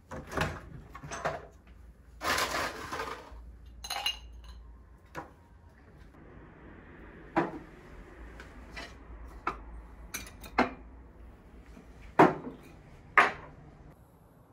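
Glassware and kitchen things clinking and knocking while a drink is made, with scattered sharp clicks and a soft rushing stretch in the middle. Near the end come two loud clunks about a second apart: large ice cubes dropped into a glass tumbler.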